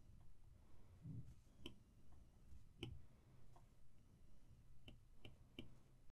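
Faint ticks of an Apple Pencil's plastic tip touching down on an iPad's glass screen, a handful of separate clicks about a second apart. The sound cuts off to dead silence just before the end.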